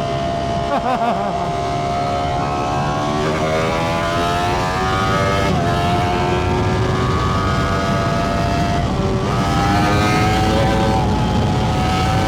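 Ducati Panigale V4 superbike engine accelerating hard through the gears. The pitch climbs steadily and drops sharply at each of about three upshifts.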